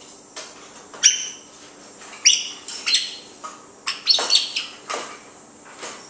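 An African grey parrot gives a series of short whistled chirps, spaced about a second apart.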